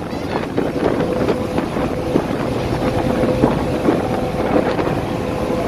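Car ferry under way, heard from its open vehicle deck: wind buffeting the microphone over the steady running noise of the vessel, with a faint hum that shifts up in pitch a little past halfway.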